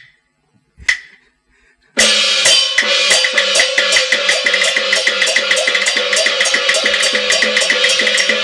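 Chinese opera percussion band: two single sharp strikes, then about two seconds in a loud, fast and steady beating of drums, gongs and cymbals starts and keeps going, the stage percussion that accompanies the actors' movements.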